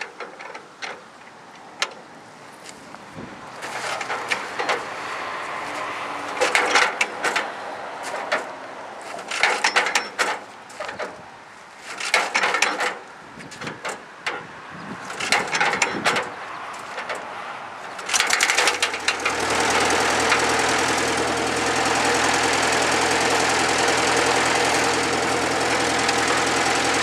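Farmall A tractor's four-cylinder engine being hand-cranked in a series of separate pulls that turn it over without it firing. About two-thirds of the way through it catches and starts, then runs steadily.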